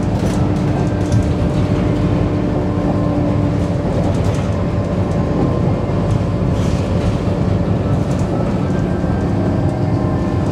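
Engine and road noise heard from inside a moving city bus: a steady low rumble with a faint humming tone.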